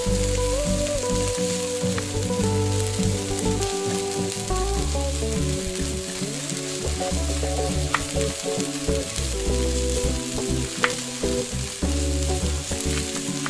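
Miniature spring rolls deep-frying in hot oil in a tiny ceramic pot: a steady sizzle, with a few sharp clicks of the metal spoon against the pot as the rolls are turned.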